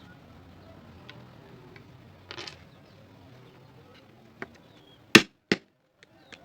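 Two sharp knocks, about a third of a second apart, near the end, after a few faint clicks and a brief scrape. These are the sounds of wooden pieces being struck or knocked together while fitting a wood joint.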